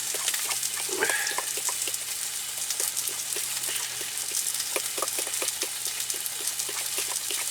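Food sizzling in a hot frying pan: a steady hiss dense with small crackling pops, over a faint low steady hum.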